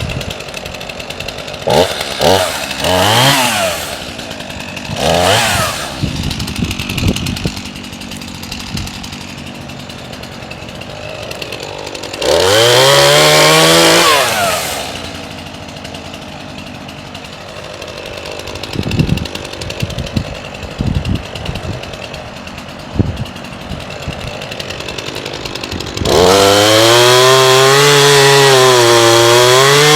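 Chainsaw idling with a few quick blips of the throttle, then revved to full speed for about two seconds near the middle. It drops back to idle, and about four seconds before the end it is held at high revs, its pitch dipping and recovering as it cuts into the rotten chestnut wood.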